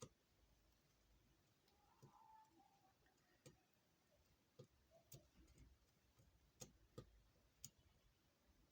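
Near silence with a few faint, irregular clicks and ticks, about eight spread over the stretch.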